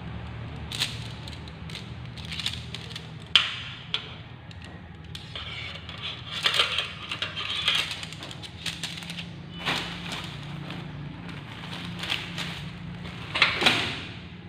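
Bundle of folded aluminium (duralumin) tent poles clinking and clacking together as they are handled, with sharp knocks, the loudest a few seconds in. Near the end, nylon tent fabric rustles as it is spread out. A steady low hum runs underneath.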